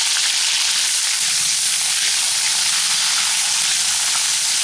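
Cauliflower florets sizzling steadily in hot mustard oil in a kadai, frying until they brown.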